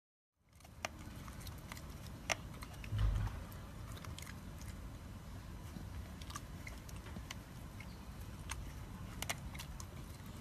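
A dachshund biting and chewing the leaves of a potted plant: faint, scattered crisp clicks over a low hiss, with a dull bump about three seconds in.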